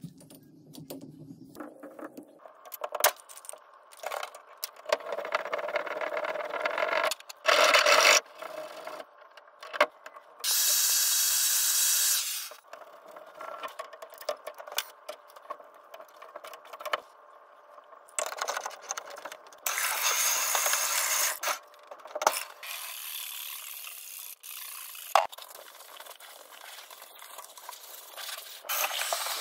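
Hand-work handling sounds during caulking and clean-up at a bathtub: clicks, scrapes and rubbing from a caulk gun and gloved hands, with two longer hissing stretches of about two seconds each.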